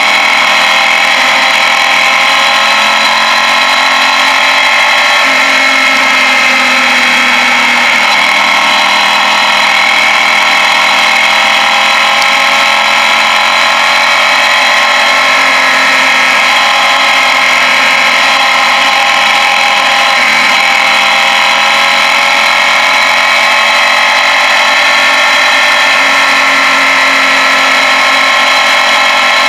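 Suzuki Gladius 650 V-twin motorcycle engine running steadily on a downhill ride, its pitch drifting gently up and down with engine speed.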